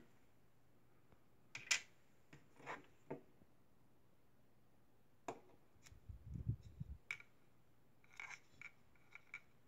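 Faint handling noises: a few light clicks and taps as a small fluorescent tube and an LED are picked up and set down on a table, with a soft low bump about six seconds in and a cluster of small ticks near the end.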